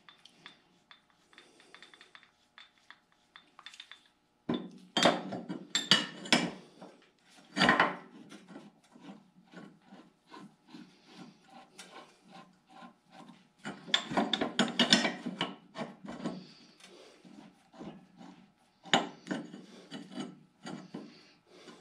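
Irregular bursts of metal-on-metal scraping and rubbing with scattered clicks, as hand tools work a puller on a pulley to draw it off its shaft.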